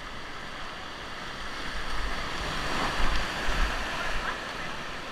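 River whitewater rushing around a raft in a rapid, swelling louder through the middle, with wind rumbling on the microphone.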